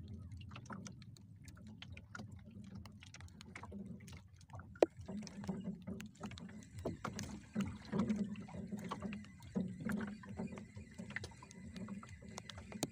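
Small wooden fishing boat on the sea: a steady low wash of water around the hull, with scattered light clicks and one sharp knock about five seconds in.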